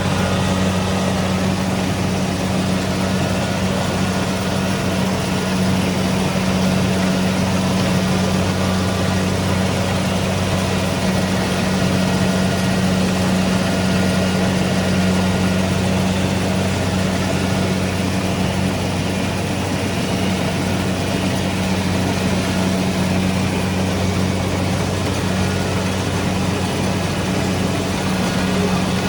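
Kubota DC-70 Pro combine harvester's diesel engine running steadily: a constant low drone with no change in speed.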